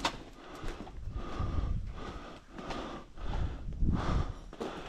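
A person breathing hard, close to the microphone while moving on foot, with a surge of breath about every second or so.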